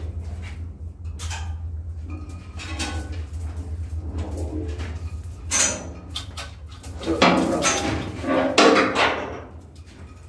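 Chains of manual chain hoists rattling and clinking as a ship's crankshaft is lowered on them. Irregular metallic knocks and squeaks get louder about halfway and again a little after seven seconds, over a steady low machinery hum.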